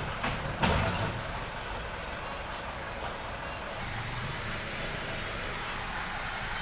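Steady rumble of a vehicle running, with two sharp knocks in the first second, the second louder.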